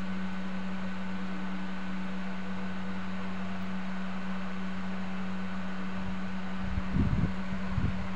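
Steady machine hum over a faint hiss, with a few dull low bumps about seven seconds in and again just before the end.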